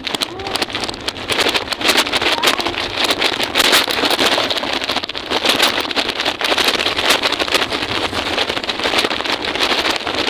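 Wheels rolling over rough pavement, a dense continuous rattle of many rapid clicks, with wind buffeting the microphone.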